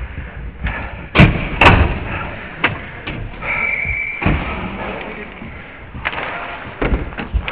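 Ice hockey rink sounds close to the boards: two loud, sharp knocks about a second in, half a second apart, then a brief steady high tone in the middle and a few lighter knocks near the end, over general rink noise.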